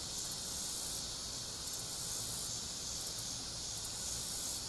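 Steady high-pitched chorus of summer insects that swells and fades every second or so, over a faint low rumble.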